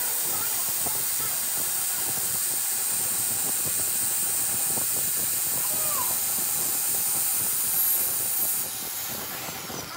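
Angle grinder running with its abrasive disc pressed against a metal hydraulic-jack shaft turning in a lathe, a steady high grinding hiss with a thin motor whine. The grinding drops away near the end.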